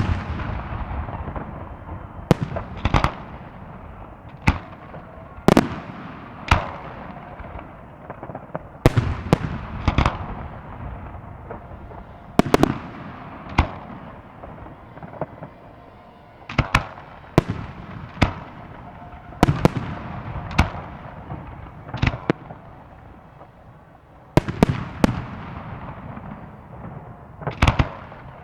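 Fireworks salute: aerial shells bursting in a long series of sharp bangs at irregular intervals, often a second or two apart, each followed by a rolling echo.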